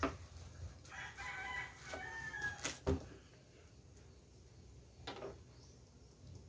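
A rooster crows once, one long call of about two seconds. A sharp knock follows just after it, and a fainter one a couple of seconds later.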